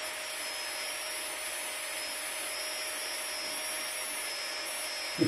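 Steady whirring hiss with a faint constant hum, the sound of a small electric motor running.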